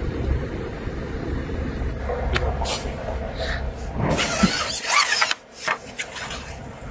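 Hooked crucian carp being drawn in and landed through dry reeds. A low wind rumble on the microphone runs underneath. From about two seconds in come scattered rustles and splashes, with a louder stretch of rustling and splashing noise around four to five seconds in.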